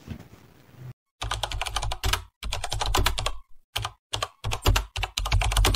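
Computer keyboard typing: rapid clattering keystrokes in bursts with short pauses, starting about a second in after a moment of faint room tone.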